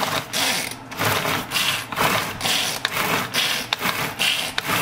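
Pull-cord manual food chopper worked by hand, pull after pull in quick succession: each yank zips the cord out and spins the blades whirring through fresh herbs in the plastic bowl.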